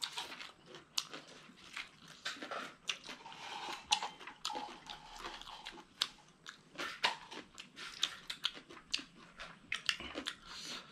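People chewing and crunching mouthfuls of papaya salad and fresh greens: irregular short crunches and mouth clicks.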